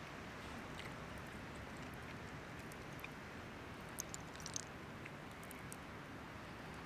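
Quiet sounds of eating a cooked velvet crab by hand: a few small crisp clicks of shell around four seconds in, over a faint steady hiss.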